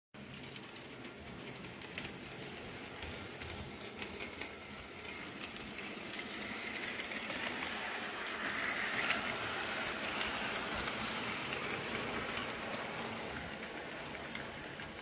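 HO-scale model freight train running past on the track: a steady rushing hiss from the model locomotive and its cars, with light clicks from the wheels on the rails. It grows louder toward the middle as the locomotive passes close, then eases off.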